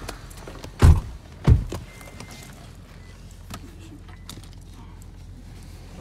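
Inside a car cabin: two heavy thumps about half a second apart near the start, then a few light clicks and knocks over a low steady hum.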